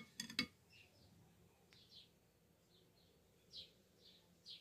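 A metal spoon clinks a few times against a cut-glass bowl just after the start. Then faint bird chirps follow, short and falling in pitch, repeating every second or so.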